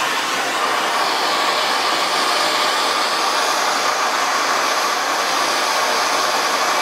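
Handheld plumbing torch burning with a steady hiss, its flame heating a copper pipe fitting to sweat-solder the joint.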